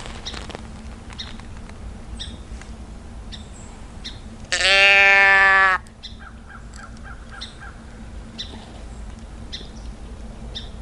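A doe-bleat can call is tipped once, giving a single loud bleat of about a second and a half about four seconds in. The call imitates a whitetail doe to draw in bucks during the rut.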